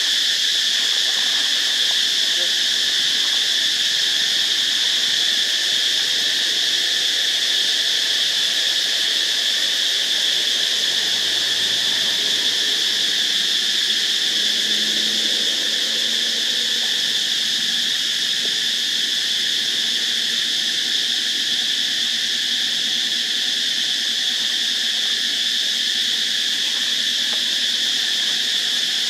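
Steady chorus of insects, a continuous high-pitched buzz that holds at one level throughout.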